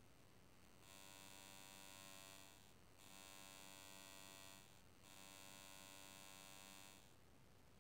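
Three faint electrical buzzes, each about two seconds long, with short gaps between them.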